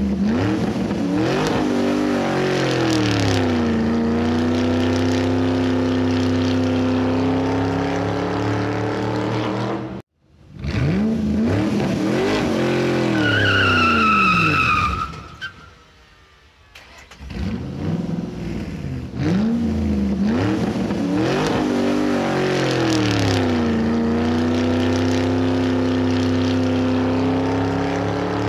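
Car engine sound effect revving up and down, then settling into a steady drone. It cuts off about ten seconds in and restarts, with a short tyre squeal in between, then plays the same rev-and-drone pattern again.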